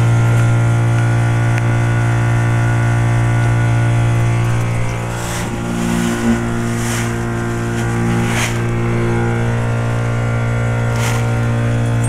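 Reciprocating Climatuff compressor of a 1998 Trane XL1800 5-ton heat pump running in its defrost cycle: a loud, steady hum with many overtones.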